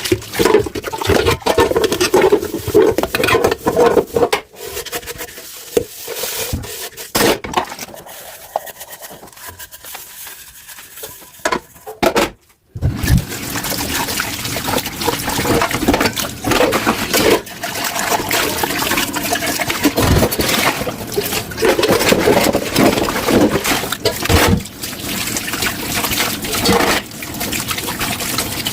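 Running water from a kitchen tap splashing into a sink while dishes are washed, with scattered clinks and knocks of dishes. The water sound drops to a quieter stretch after a few seconds, cuts out briefly near the middle, then runs steadily again.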